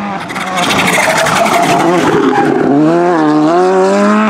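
A Volkswagen Polo rally car taking a tight hairpin at close range. A loud, rough rush of tyre and loose-gravel noise comes first. Then, from about halfway through, the engine revs up hard out of the turn, its pitch dipping once and climbing again.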